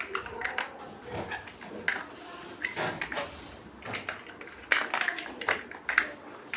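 Plastic building bricks clicking and clattering as pieces are handled and pressed together: an irregular run of small sharp clicks, the loudest a few near the end.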